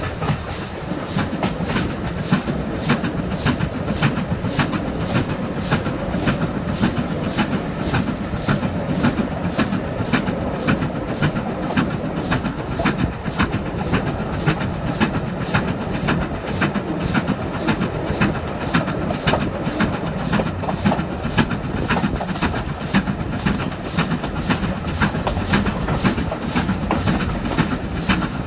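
Stanier Black 5 steam locomotive hauling a passenger train at speed. Its exhaust gives a steady, even beat over the rumble of carriage wheels on the rails, heard through an open carriage window.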